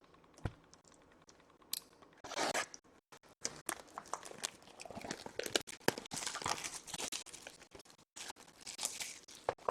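Packaging of a sealed box of trading cards being torn open: irregular tearing, crinkling and rustling of wrapper and cardboard, with small clicks.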